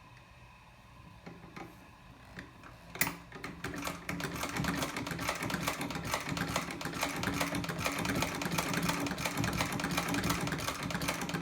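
Early-1880s Raymond No. 1 lockstitch treadle sewing machine sewing. It starts with a few small clicks, gives a sharp click about three seconds in, then runs with a rapid, steady clatter of ticks over a low hum.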